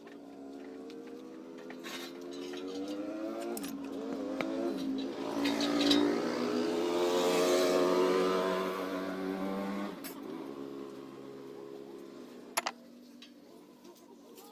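Motorcycle engine running, growing louder to a peak around the middle and then falling away, with a sharp click near the end.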